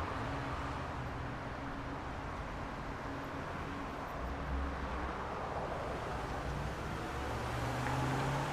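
Busy street traffic: a steady wash of passing vehicles with a low engine hum, one vehicle growing louder near the end.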